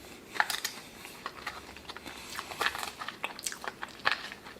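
Close-up eating sounds: a person chewing crunchy fried food with a mouth close to the microphone, in irregular crunches and smacks.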